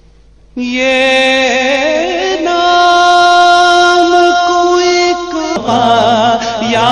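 Male naat reciter singing a long drawn-out note without words after a brief pause at the start, holding the pitch steady for several seconds. Near the end a lower part joins and the sound thickens.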